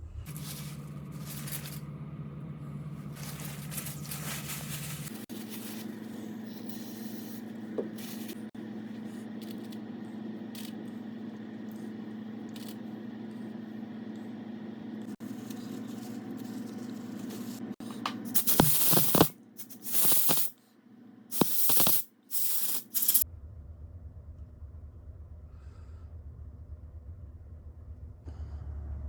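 Aerosol spray can hissing in four or five short, loud bursts, over a steady low hum.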